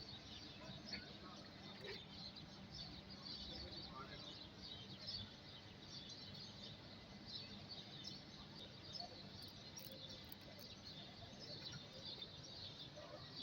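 Faint outdoor ambience with many small birds chirping steadily over a low background hum.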